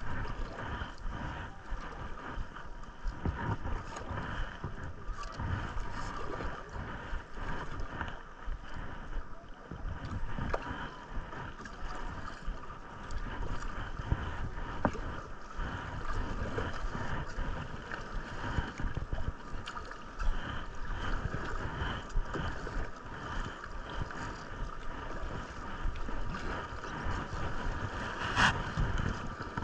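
Steady rush of river water around a kayak, with wind buffeting the microphone in uneven low thumps, and one sharp click near the end.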